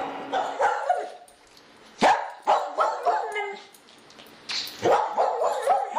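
A dog barking and yelping, a few short barks at a time, with a quiet gap in the middle; the loudest bark comes about two seconds in.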